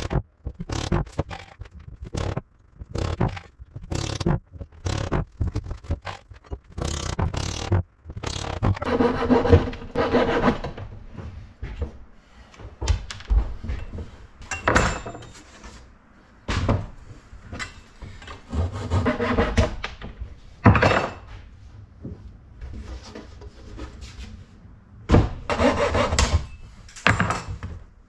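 Hammer tapping wooden bungs into screw holes in a wooden door panel, a quick series of sharp knocks, followed by a small hand saw trimming the bungs flush with the surface in several short bouts of rasping back-and-forth strokes.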